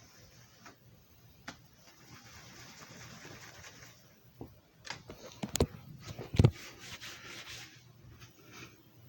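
Handling noises: a soft rubbing hiss, then a cluster of clicks and knocks, two of them louder, and another stretch of rubbing.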